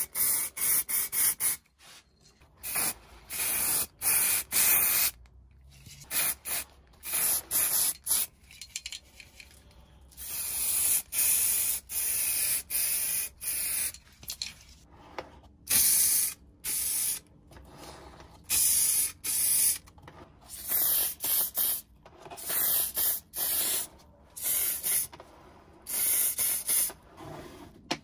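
Aerosol can of VHT spray paint hissing in repeated short bursts, from a fraction of a second to about two seconds each, with brief pauses between them.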